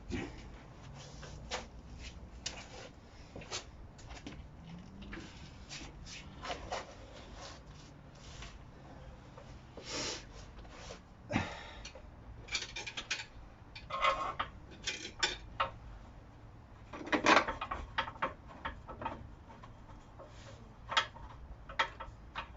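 Scattered clicks, knocks and clatter of hand tools, bolts and jack parts being handled while working on a car's rear subframe, busiest about halfway through, with the loudest knock a few seconds later.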